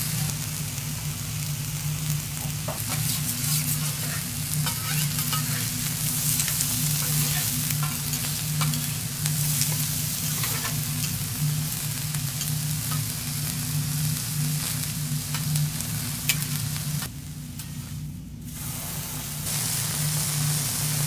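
Beef sirloin searing and sizzling on a teppanyaki iron griddle, with scattered clicks and scrapes of metal spatulas on the plate. The sizzle drops away briefly near the end, then comes back.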